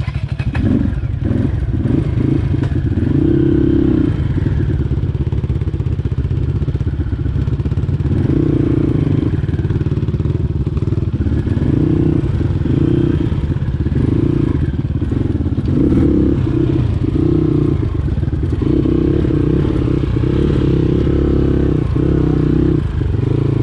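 Dirt bike engine running at low revs close by, its note swelling and easing every second or so as the throttle is worked, with some rattling.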